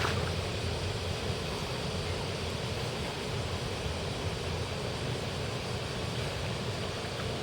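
Steady low rumble of wind on the microphone, with no separate events standing out.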